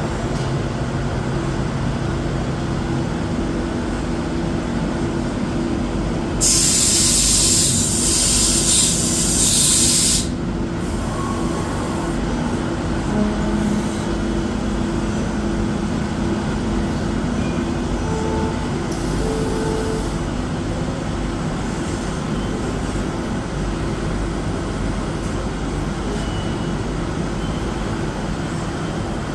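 CNC lathe running with a steady machine hum and several steady low tones, some shifting in pitch as it works. About six seconds in, a loud hiss cuts in and lasts about four seconds, then stops abruptly.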